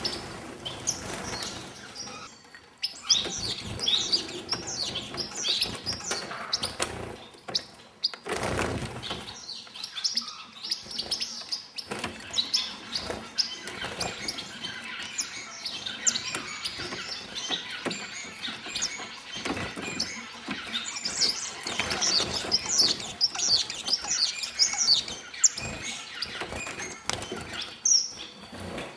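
A flock of star finches calling in their aviary: many short, high chirps overlapping throughout, with wing flutters, small knocks and one louder bump about eight and a half seconds in.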